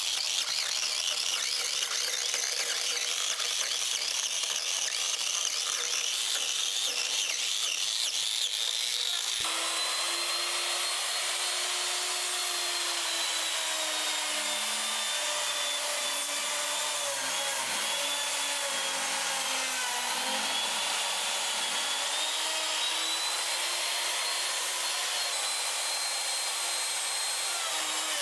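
Electric wood-carving power tool cutting into wood with a steady rasping noise. About nine seconds in the sound changes abruptly to a motor whine whose pitch dips and recovers as the load on the cutter varies.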